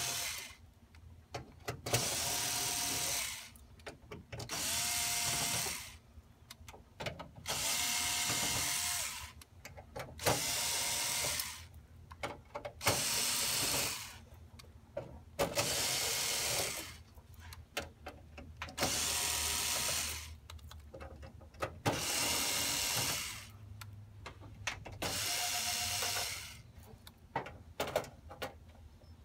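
Small cordless screwdriver running in about ten short bursts of a second or so each, backing out the screws that hold a copier's rear metal cover plate, with small clicks and rattles between the runs.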